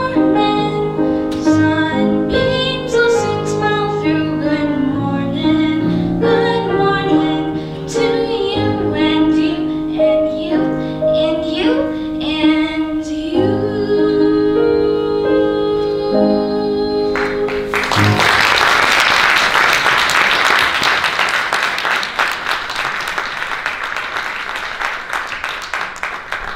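A girl sings with Steinway grand piano accompaniment until the song ends about two-thirds of the way through. An audience then applauds, the clapping tapering off near the end.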